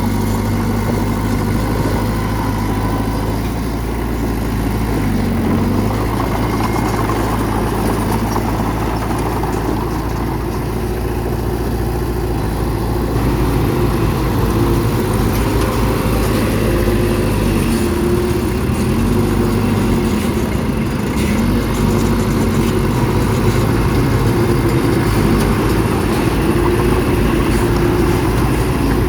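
Bulldozer's diesel engine running steadily as it works, its pitch shifting around the middle.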